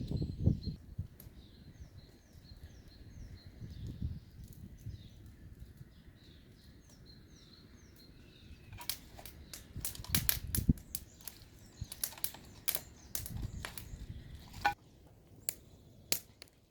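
Small birds chirping over a low outdoor rumble. From about nine seconds in, wood crackles and snaps in a dense run of sharp cracks, with a few more near the end.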